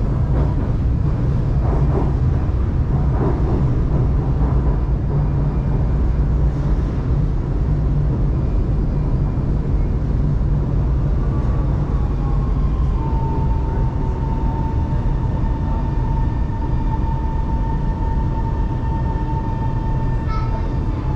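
Shanghai Metro Line 2 train's steady low rumble and hum. A thin, steady whine joins it about halfway through and begins to drop in pitch near the end.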